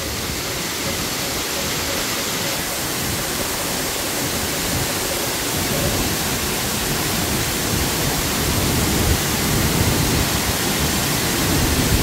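A three-tiered waterfall about 20 m high, in heavy flow after monsoon rains, pouring into its plunge pool: a steady rush of falling water and spray.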